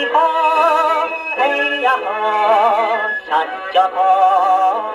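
A 1954 78 rpm enka record playing on a Columbia Grafonola acoustic phonograph: a male voice sings long held notes with a wide vibrato over the accompaniment, in a thin tone with no bass.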